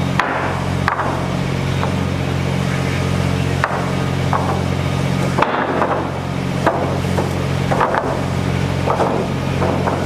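Hammer blows at a construction site, irregular strikes about once a second with a short ring after each, over the steady hum of an engine running.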